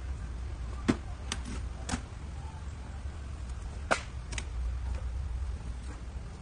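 A handful of short, sharp clicks over a steady low rumble of background noise, the loudest clicks about a second in and about four seconds in.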